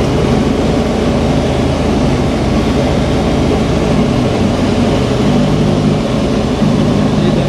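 Light aircraft's propeller engine running steadily in cruise, heard from inside the cockpit, with the engine note shifting slightly about five seconds in.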